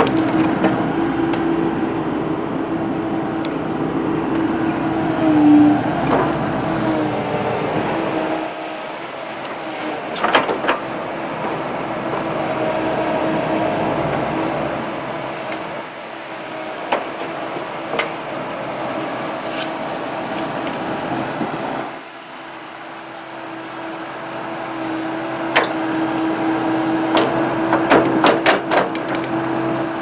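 Mini excavator running while it digs a trench, its engine and hydraulics giving a steady hum with a held tone. Sharp clanks and knocks come now and then from the steel bucket working the soil, most in a cluster near the end.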